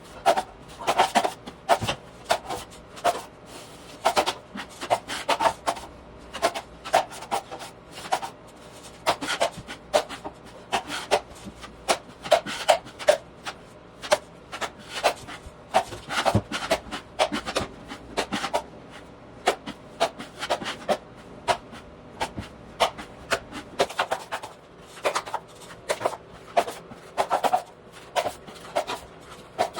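Hand tool scraping and rubbing over a drywall patch in short, irregular strokes, about one or two a second.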